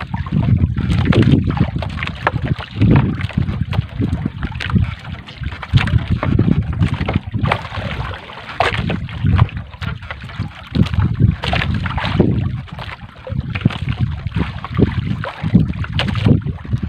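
Wind buffeting the microphone in repeated gusts, the loudest sound, over irregular splashing and dripping of sea water as a wet three-ply gill net is pulled hand over hand across a boat's wooden side.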